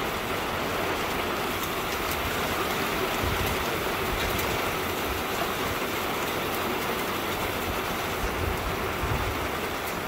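Steady rain falling on grass and gravel, an even hiss of many drops.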